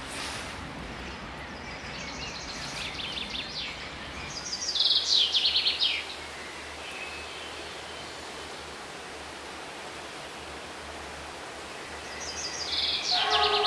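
A songbird singing two phrases, each a fast trill that steps down in pitch and ends in a louder flourish, over a steady outdoor background hiss.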